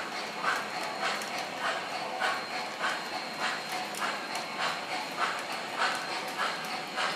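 MTH O-gauge model steam locomotive running with its electronic chuffing sound at an even beat, about one and a half chuffs a second, over the steady rumble of wheels on the track.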